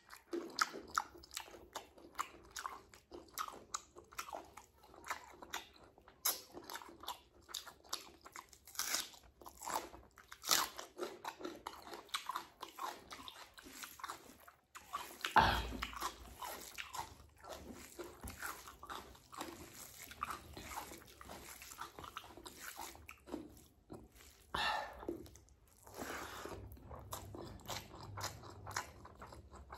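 Close-miked eating sounds of a person eating rice and egg curry by hand: many short, wet, irregular clicks of chewing and smacking, with the squish of fingers working rice into curry. One louder thump comes about halfway through.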